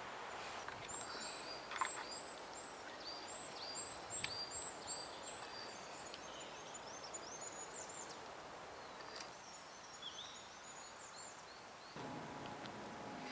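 A small songbird singing outdoors: a quick run of the same high two-part note repeated many times, then a looser twittering phrase. A few sharp clicks sound under it, and a low steady hum with several tones comes in near the end.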